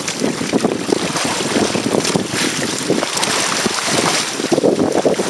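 Wind buffeting the microphone over the rush and splash of water along the hulls of a Hobie Tandem Island sailing trimaran moving under sail through a moderate chop, with the hiss growing stronger through the middle.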